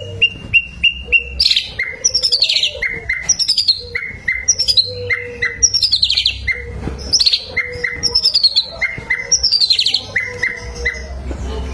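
Bird song: a run of short, evenly spaced chirps, then repeated phrases of quick falling trills and short down-slurred notes, about one phrase a second.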